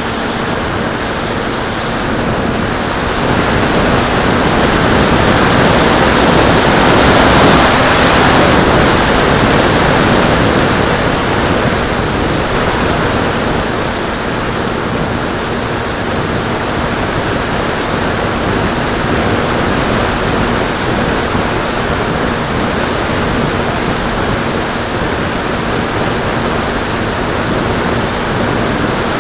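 Airflow rushing over the microphone of a camera mounted on a Bixler 2 foam plane in flight, with the plane's brushless electric motor and 8x5 propeller humming steadily underneath. The rush swells about three seconds in and eases back after about ten seconds.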